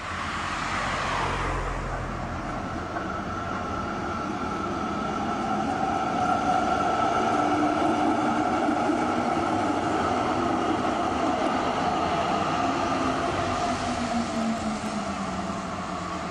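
A car passes close by with a swish of tyres and a low rumble. Then an electric Zurich Tram 2000 tram set runs past, its traction equipment whining in several steady tones. The tones fall in pitch near the end as the tram draws away.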